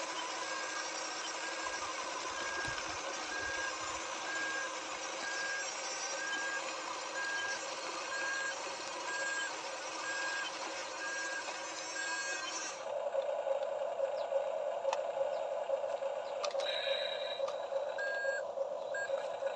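Toy RC construction vehicle's electronic reversing beeper, a high beep repeating about once a second over the whir of its small motors and gears. About two-thirds in the sound changes abruptly to a louder, lower motor hum with only a couple more beeps.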